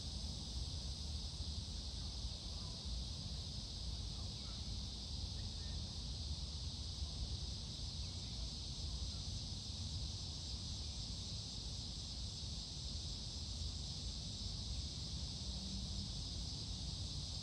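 Steady outdoor background noise: an even low rumble with a constant high hiss, and no distinct event standing out.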